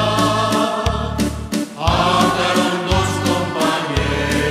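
A group of people singing together in chorus to a strummed acoustic guitar, the chords changing about once a second.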